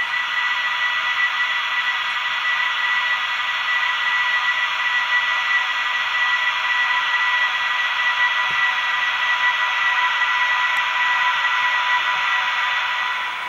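Sound decoder of a model DB class 118 electric locomotive playing its electric-locomotive running sound through the model's small speaker: a steady hiss with a steady high whine.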